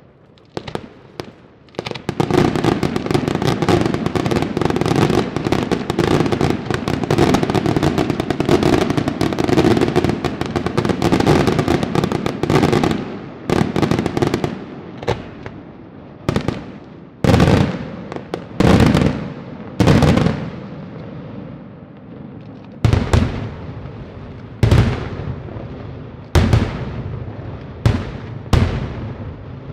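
Daytime aerial fireworks: a few scattered pops, then about two seconds in a dense barrage of rapid bangs and crackle lasting around ten seconds. After that come about a dozen single loud booms a second or two apart, each trailing off with a fading tail.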